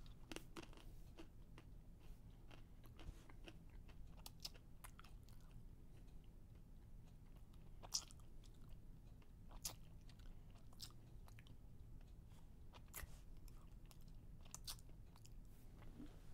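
Near silence: a faint low hum with scattered small clicks and crackles, a sharper click about halfway through.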